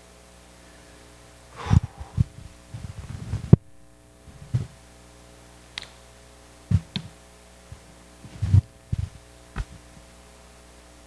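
Steady electrical hum with a dozen or so irregular dull thumps and a few sharp clicks: handling noise on or near a microphone.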